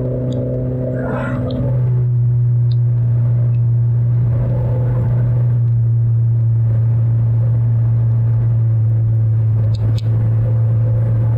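Steady low rumble inside a car being driven without its serpentine belt, coasting downhill. A set of higher steady tones over the rumble fades out a couple of seconds in.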